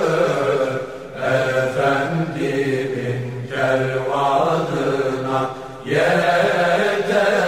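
A Turkish ilahi (Sufi devotional hymn) sung unaccompanied, with slow, long-drawn notes. The singing breaks off briefly about a second in and again just before six seconds.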